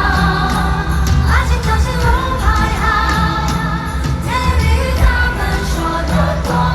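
Live Mandopop concert music heard from the audience inside an arena: a singer's voice over a band track with heavy, steady bass.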